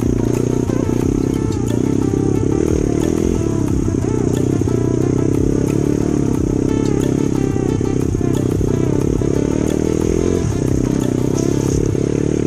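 Kawasaki KLX dirt bike's small single-cylinder four-stroke engine running steadily, with scattered knocks and rattles.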